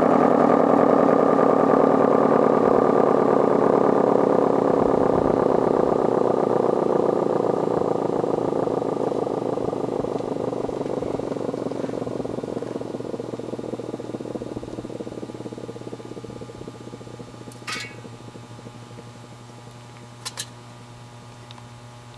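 Federal SD-10 air-raid siren winding down: its wail, several tones together, falls slowly in pitch and fades over about eighteen seconds as the rotor coasts to a stop. Near the end only a low steady hum remains, with two short clicks.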